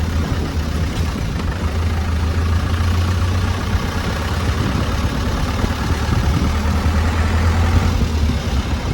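An engine running steadily with a low hum, under an even hiss.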